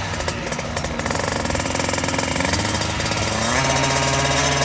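KTM 50 mini dirt bike's single-cylinder two-stroke engine running while the bike stands still, a rapid buzzing rattle; about three and a half seconds in, its note steadies into an even hum.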